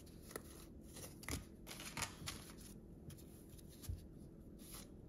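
Donruss basketball trading cards being flipped through by hand one after another: faint, soft flicks and slides of card stock at an irregular, quick pace.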